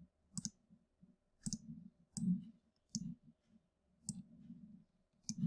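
Computer mouse clicking: six sharp single clicks, roughly a second apart, with soft low knocks around them as lines are drawn on screen.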